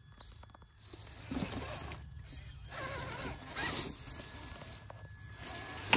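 Electric motor and gear drive of an RC rock crawler whirring in uneven spurts as it climbs over rocks, its tyres rustling and crunching through dry leaves. There is a sharp knock near the end.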